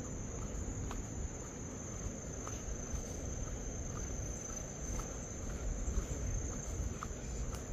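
Insects droning in one steady high buzz that does not break, over a low rumble.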